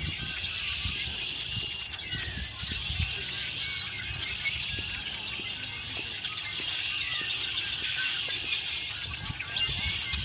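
A chorus of many small birds chirping and trilling at once, a dense continuous chatter.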